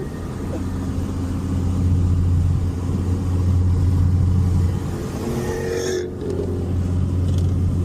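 Car engine and road noise under load, a steady low drone that swells over the first few seconds, then eases and breaks briefly about three-quarters of the way through.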